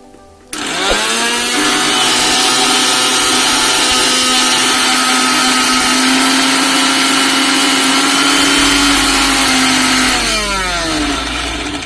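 Mixer grinder motor switched on, its whine rising quickly to full speed, running steadily for about nine seconds, then switched off and winding down with a falling whine near the end.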